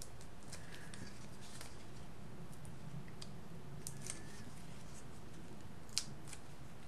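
Faint small crinkles and ticks of fingers working paper, peeling the backing off foam adhesive dots on a cardstock piece, with one sharper tick about six seconds in, over a low steady hum.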